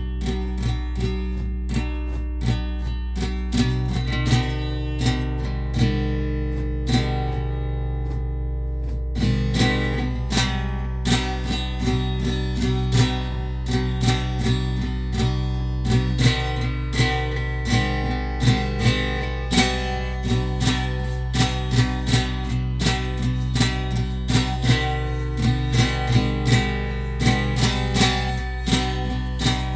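Instrumental music: acoustic guitar strummed and plucked in a steady rhythm over a sustained low bass note, thinning out briefly about seven seconds in before picking up again.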